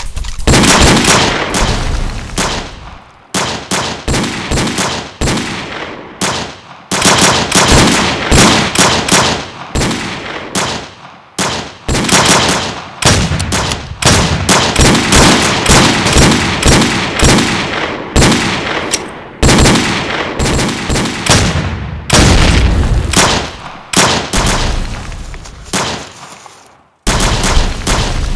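Gunshot sound effects in a film fight: volleys of rapid shots, some as fast as automatic fire, each shot fading off, with short pauses between volleys and a brief break near the end.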